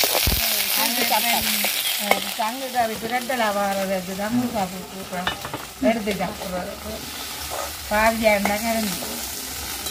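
Seasonings frying in hot oil in a metal pan, stirred and scraped with a metal spatula. The sizzle is loudest in the first couple of seconds and then eases off. A woman's voice talks over it.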